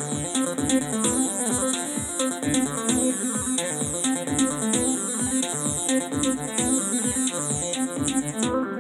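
Roland JD-Xi synthesizer playing a fast, rhythmic electronic pattern of repeating notes over a pulsing bass.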